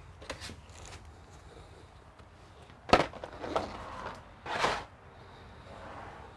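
Workbench handling noise as a black plastic tray of glue tubes is lifted off the closed laptop and put away: a sharp knock about three seconds in, then rustling and a short scrape a second and a half later.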